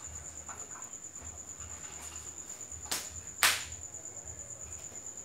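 Dog eating dry cat food from a bowl: two sharp clicks a half second apart, the second louder, over a steady high-pitched tone.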